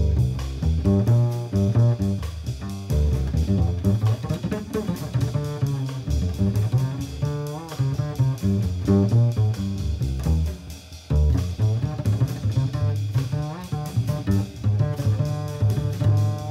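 Jazz with a prominent double bass.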